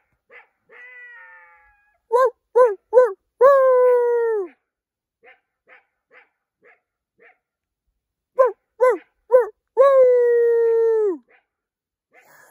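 A man's imitated coyote call: three quick yips running into a long howl that drops off at its end, done twice. Fainter yips and a short wavering call come in between.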